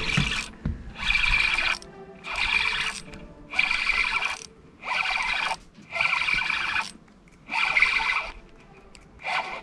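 Spinning reel cranked in short spells as a hooked bluegill is reeled in: a whirring gear whine that starts and stops about once a second.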